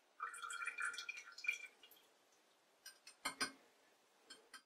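Hydraulic oil from a dismantled shock absorber dripping and trickling into the shock's metal tube clamped in a vise, for about the first two seconds. A few light clicks and a knock follow a little after three seconds in.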